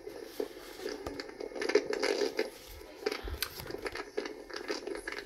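Rustling and crackling with scattered sharp clicks, densest a little under two seconds in.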